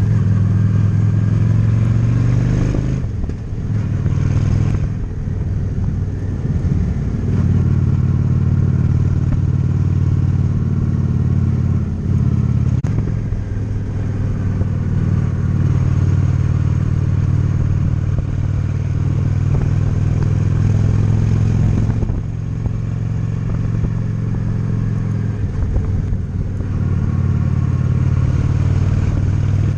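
Honda Shadow 750's V-twin engine running under way on the road, a steady low exhaust rumble. The engine note drops and picks up again a few times, near the start, about two-thirds of the way in, and once more a few seconds later.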